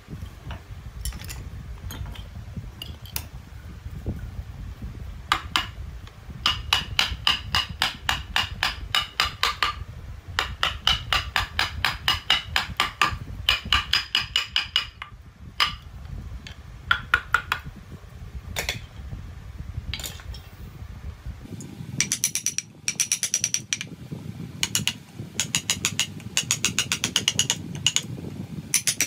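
Hammer striking a wood-carving chisel into a wooden statue: runs of rapid, even taps, several a second, broken by short pauses.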